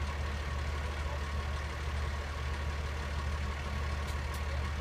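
Large diesel engine idling steadily with a low, even hum.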